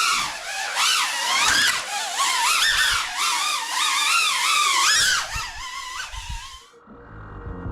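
Cinewhoop FPV quadcopter's motors whining, the pitch swinging up and down quickly with throttle. The whine fades about five seconds in, and a low steady hum takes over near the end.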